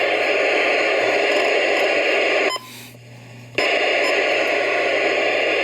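Static hiss from a radio receiver, cutting out for about a second midway and then coming back.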